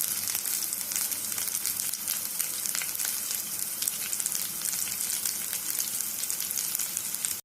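Breadcrumb-coated vegetable cutlets frying in hot oil in a pan: a steady sizzle dotted with fine crackles as the second side cooks.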